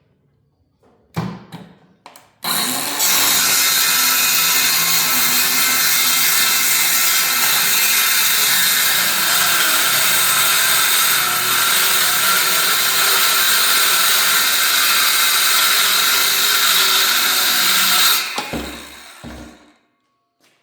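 Electric drill: two short trigger bursts, then it runs steadily for about fifteen seconds and spins down, followed by two more short bursts near the end.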